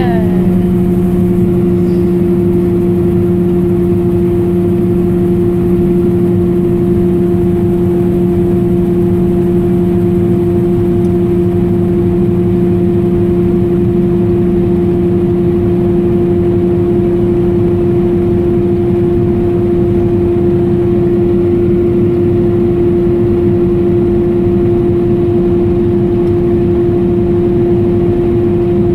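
Combine harvester running steadily: a constant, even machine drone with a strong steady hum that neither rises nor falls. A short falling whistle sounds at the very start.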